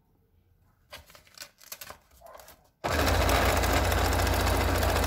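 Domestic electric sewing machine starting abruptly about three seconds in and stitching at a steady fast speed, sewing bias binding onto a clear plastic sheet. Before it starts, a few light rustles and clicks of the plastic and tape being positioned under the presser foot.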